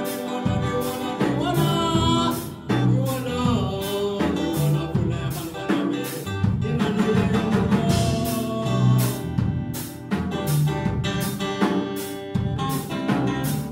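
Live band playing: a man singing into a microphone over electric guitar and a drum kit keeping a steady beat, with a bass line underneath.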